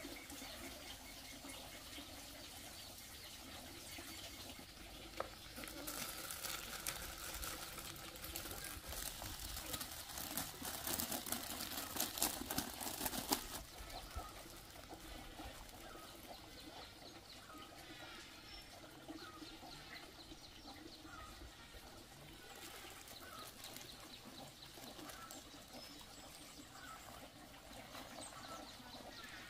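Shredded cassava root rustling and pattering as handfuls are lifted and scattered onto a concrete yard, loudest for several seconds in the first half. Short bird chirps are heard through the second half.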